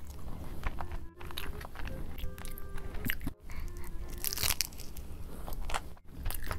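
Close-miked eating: wet chewing and crunching of crispy fried food, with a loud, crisp bite into a fried basket shell about four seconds in. The sound drops out briefly about three times.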